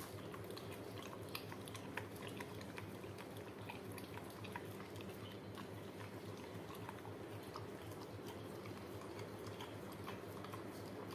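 A Labrador licking and lapping yogurt out of a small plastic cup: faint, irregular wet clicks and smacks of tongue and mouth, over a steady low hum.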